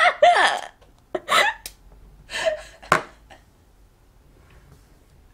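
A girl laughing in short breathy gasps and squeals, then a single sharp tap about three seconds in, followed by quiet.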